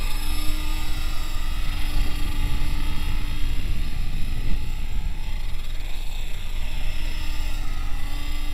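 HK-500 CMT electric RC helicopter flying: a steady whine from its motor and gears over the drone of the rotor blades, with wind rumbling on the microphone.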